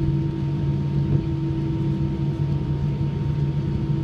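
Airbus A319's jet engines running at taxi power, heard inside the passenger cabin: a steady drone with a few held humming tones.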